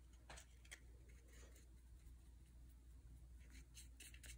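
Faint scratchy strokes of a paintbrush dabbing red paint, first on a plastic palette, then onto a paper-pulp egg-carton cup: a few separate strokes, then a quicker run of strokes near the end.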